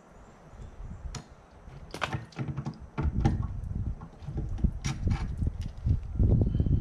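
Quick-release bar clamps being unclamped from the aquarium glass and drill guide: a few separate sharp plastic-and-metal clicks and snaps. A low rumble comes in about three seconds in.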